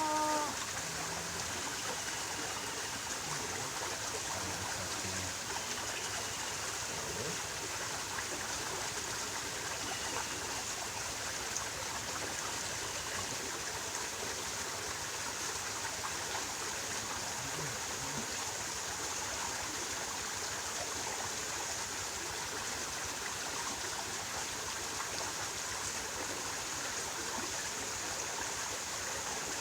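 Steady rush of flowing stream water, an even hiss that does not change, with a few faint short chirps in the first ten seconds.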